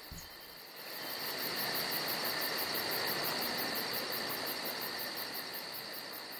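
Insects chirping and trilling: a steady high trill and a quick, even chirping, about five a second, over a steady hiss that swells about a second in.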